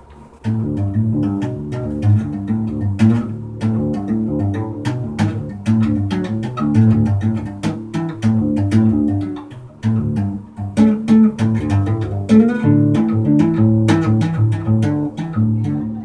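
Classical nylon-string guitar played by two-handed tapping on the fretboard: a busy run of notes with sharp percussive clicks. It starts about half a second in, with a short break around ten seconds.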